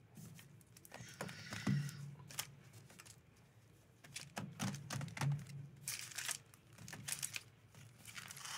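Magic: The Gathering booster packs crinkling and rustling in their foil wrappers as hands shuffle them and spread them out, with irregular light clicks and taps.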